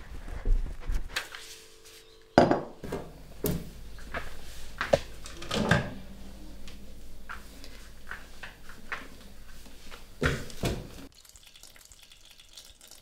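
Low thuds, then kitchen clatter: a string of sharp knocks and clinks of crockery and a stainless electric kettle being handled, over a steady low hum. Two more knocks come near the end, followed by faint water pouring from the kettle.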